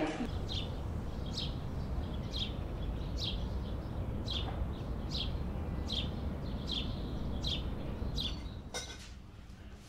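A bird chirping, a short falling note repeated about once a second, over a low steady outdoor rumble.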